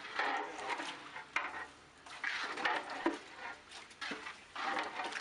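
A long metal ladle stirring beef, sliced shallots and water in a large metal cooking pot, with uneven sloshing, scraping strokes and a few sharp knocks of metal on the pot.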